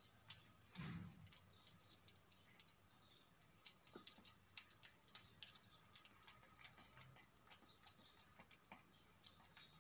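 Faint, irregular little clicks of a kitten chewing and lapping food off a tile floor, with one brief louder bump about a second in.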